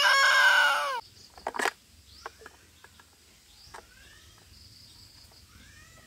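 A young child's loud wailing cry for about the first second, falling away at its end, then a sharp click and a few faint short chirps over a steady high insect hum.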